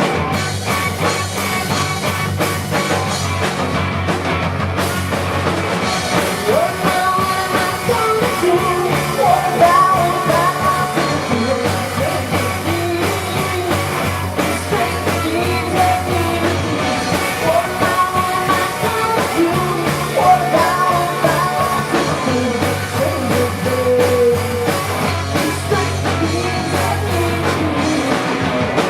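Rock band playing live: electric guitar, bass and drums, with a melody line wavering above a steady bass.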